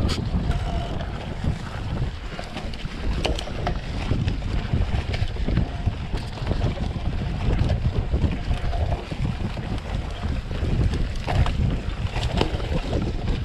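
Mountain bike riding fast down a dirt forest trail: wind buffets the microphone over the rumble of the tyres on the ground, with scattered rattles and clicks as the bike goes over bumps.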